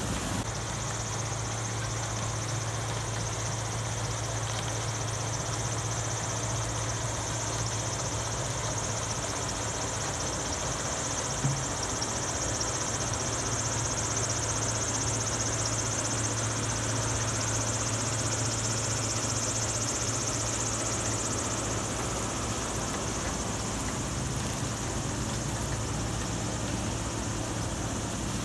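Diesel engines of a sugarcane harvester and the tractor hauling its cane wagon, running steadily under load while cutting and loading cane: a steady low hum under a hiss, with one brief knock near the middle.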